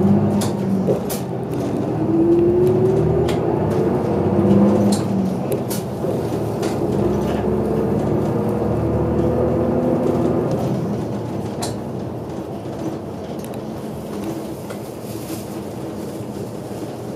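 City bus engine and drivetrain running under way, heard from inside the cabin: a low rumble with a whine that rises in pitch twice as the bus gathers speed, with scattered rattles and clicks. It gets quieter about two-thirds through as the bus eases off.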